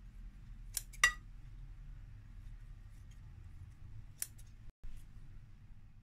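Kitchen scissors snipping soft roasted red peppers into strips: two sharp snips about a second in and another past four seconds.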